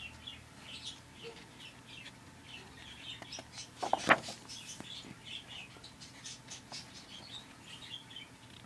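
Faint, rapid, high chirps repeating, typical of a small bird, with one sharp knock about four seconds in.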